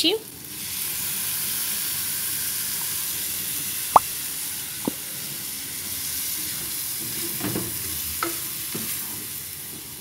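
Calabresa sausage, onion and garlic sizzling steadily in a frying pan as cream is poured in, with two sharp taps about four and five seconds in and a wooden spoon stirring the pan near the end.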